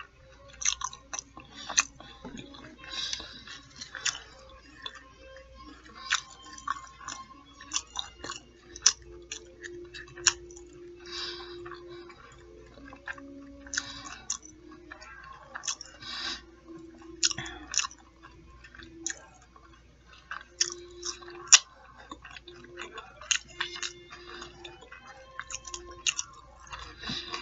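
Close-miked chewing of fried fish nuggets and fries: a run of irregular mouth clicks and smacks, with a low steady tone coming and going under them.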